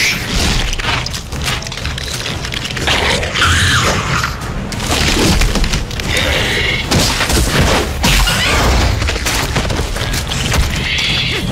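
Action-film sound mix: repeated heavy booms and crashes over a constant rush of noise, with dramatic music underneath.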